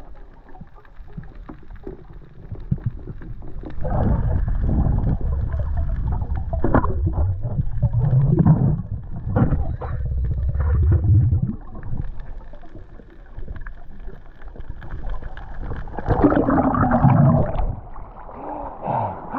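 Muffled underwater sound picked up by a camera in a housing: low rumbling and gurgling of moving water around a diver. About sixteen seconds in there is a louder burst of splashing and bubbling as the camera breaks the surface.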